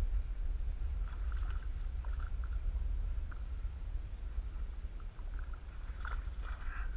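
A low steady rumble on the microphone with faint scattered clicks, then about six seconds in a sharp splash as a Murray cod strikes a surface lure.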